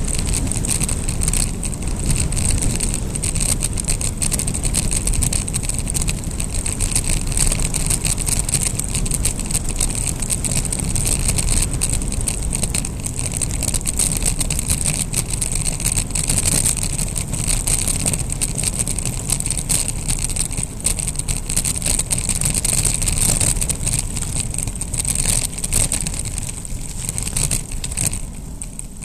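Wind rushing over a bike-mounted action camera's microphone and tyres rolling on rough, gravelly asphalt during a fast downhill ride, with many small clicks and rattles from the bike and camera mount over the bumps. It eases off near the end as the bike slows.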